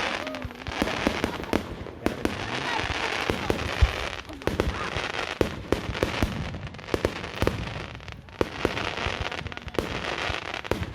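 Aerial fireworks going off: a rapid, irregular string of bangs from bursting shells, several a second at times, over a continuous crackling hiss.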